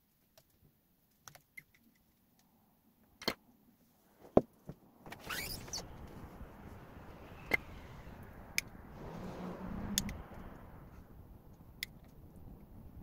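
Sharp clicks and taps of hand tools on the workbench and the opened battery pack during desoldering, the loudest about four and a half seconds in. From about five seconds in a steady rushing noise sets in and swells for a moment near the ten-second mark.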